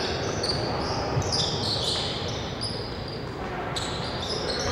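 Basketball game on a hardwood court: sneakers squeaking in many short, high-pitched chirps, with a ball bouncing.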